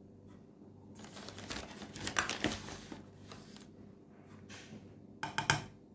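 Paper packet of custard powder rustling and crinkling as the powder is spooned and then poured out, with a few sharp taps just after five seconds in, the loudest moment.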